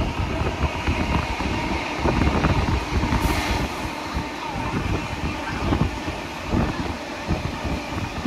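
Moving heritage passenger carriage behind steam locomotive 3801: a steady rumble of wheels on rail with irregular knocks, and wind blowing past the open window. A brief hiss about three seconds in.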